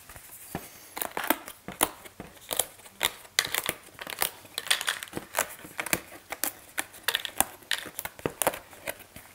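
Cardboard pieces being pushed out of a board game punchboard: a quick, irregular run of small snaps and tearing sounds.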